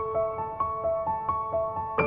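Gentle instrumental background music: a soft melody of ringing notes, about four new notes a second.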